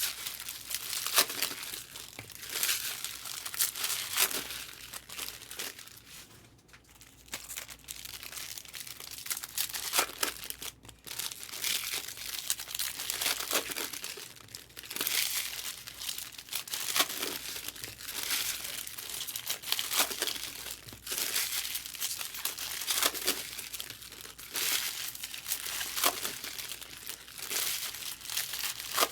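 Trading-card pack wrappers crinkling and tearing as packs are opened, in a series of irregular rustles.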